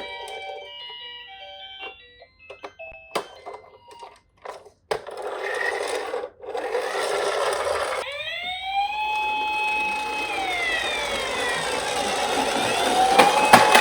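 Scattered light plastic clicks and knocks, then from about eight seconds in a toy emergency vehicle's electronic siren wails: it rises to a held tone, falls away, and rises to hold again near the end, over a steady whirring hiss.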